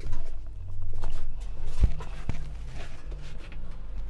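Handling noise from parts bins being moved and rummaged: rustling, with two sharp knocks about two seconds in over a low rumble.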